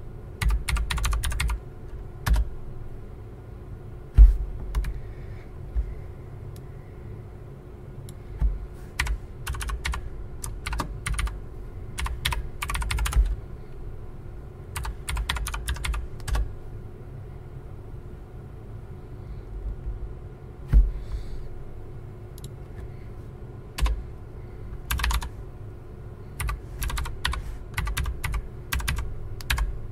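Typing on a computer keyboard in bursts of quick keystrokes, with pauses between the bursts and a couple of heavier thumps. A steady low hum runs underneath.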